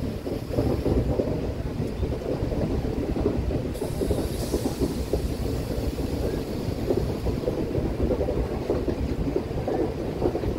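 Running noise of a moving passenger train: a steady rumble of the wheels on the rails, with a brief hiss about four seconds in.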